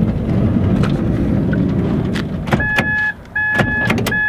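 Knocking and rustling of a hard case being handled and lifted out through a vehicle's open door. Past the halfway mark come three steady electronic beeps, each about half a second long with short gaps between them.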